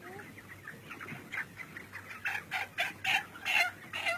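Chickens clucking, a run of short clucks that grows denser and louder about halfway through.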